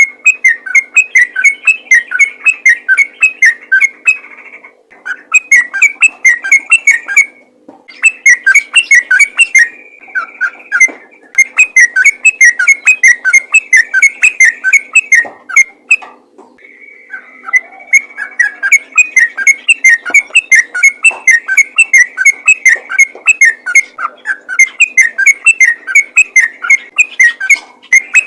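Yellow-vented bulbul (trucukan) singing a loud, fast 'ropel' song: rapid runs of short whistled chirps, several a second, in phrases a few seconds long with short pauses between, now and then a held whistle.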